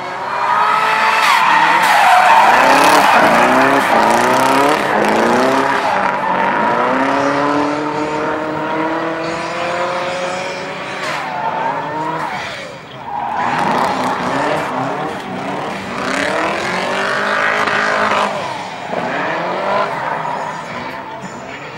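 BMW E30 drift car's engine revving hard, its pitch climbing and dropping again and again as the car slides sideways, with tyres squealing against the tarmac. Loudest in the first few seconds, it dips briefly about halfway through before building up again.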